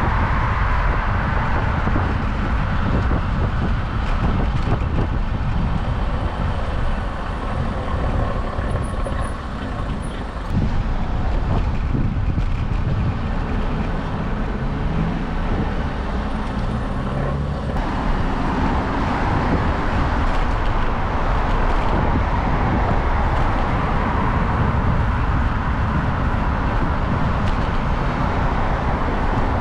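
Road traffic noise, with cars and trucks passing in the next lane. Steady, fluttering wind noise on the microphone of a camera carried on a moving bicycle runs underneath it.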